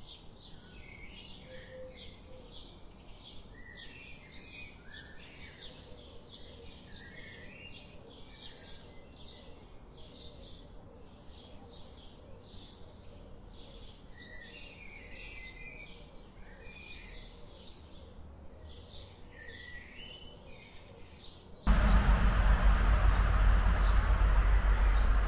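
Woodland birds calling: a dense chorus of short chirps and whistles repeating over a faint background. Near the end a sudden loud rushing noise, heavy in the low end, cuts in and covers them.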